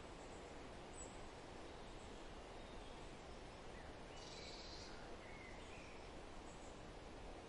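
Faint steady outdoor ambience with a few brief distant bird calls, the clearest about four seconds in.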